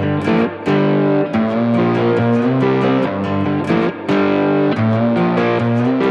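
Background music: distorted electric guitar playing chords that change about every half second.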